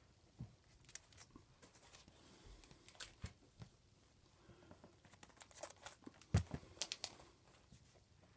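Close rustling and crinkling, as of paper or plastic being handled, with scattered light clicks and a louder knock about six seconds in.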